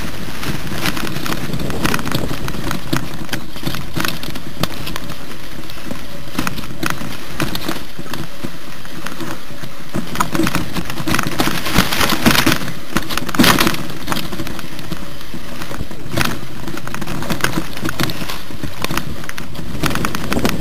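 Mountain bike rattling and clattering over a rough, rocky downhill trail: a dense, continuous stream of knocks and clicks, with a few harder jolts around the middle.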